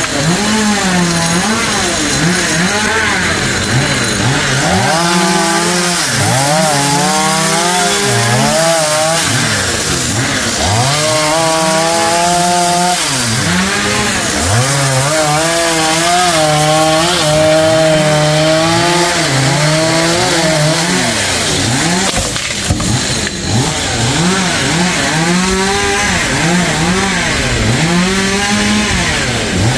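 Chainsaw cutting through tree wood. The engine pitch repeatedly drops as the chain bogs into the cut and climbs again as it frees up.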